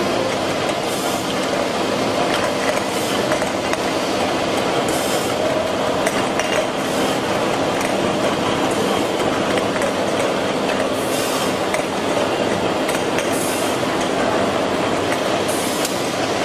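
Automatic beer can filling and seaming machine running: a steady mechanical clatter with metallic clinking of cans, and short hisses every couple of seconds.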